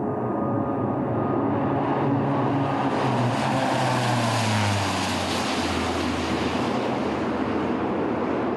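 C-27J Spartan twin-turboprop transport making a low pass. The drone of its engines and propellers grows louder, is loudest as it passes about four seconds in, then drops in pitch as it flies away.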